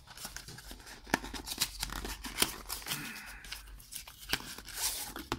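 Cardboard box being opened by hand: the tape on its flap peeled and torn, with scratchy tearing and a run of small clicks and knocks from the packaging.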